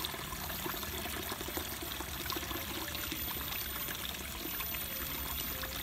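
Steady trickle of running water, a continuous even rush with a few faint ticks in it.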